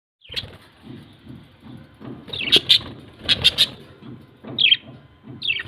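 Pet parrots calling: short, shrill squawks and chirps, some in quick runs of two or three and some falling in pitch, over a softer low chatter.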